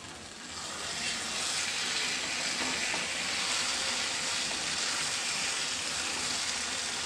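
Thick taro-flower and hilsa mash sizzling in a frying pan as a wooden spatula stirs it; the sizzle swells about a second in and then holds steady. The mash has cooked down until it comes away from the pan, the sign that it is done.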